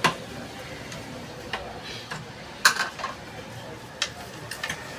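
Metal parts of a gas stove's burner assembly clinking and knocking as they are handled and fitted back together: a sharp clink at the start, then a scattering of lighter clicks, the loudest a double knock just under three seconds in.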